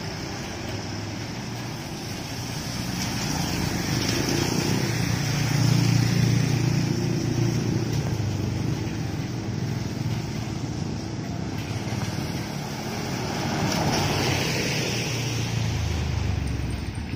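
A double-decker tour bus's diesel engine running as it turns slowly across a wet road, with a low rumble that swells about six seconds in and again near the end. Over it is a steady hiss of tyres on the rain-soaked surface, and motorcycles pass.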